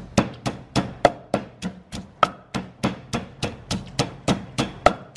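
Pestle pounding chillies and salt in a mortar: a steady, even run of strikes, about three to four a second.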